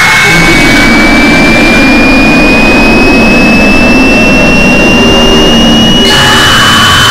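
A loud, dense mashup of harsh noise layers with a single thin, high-pitched tone gliding slowly and steadily upward throughout. The noise layers change abruptly about a second in and again near six seconds.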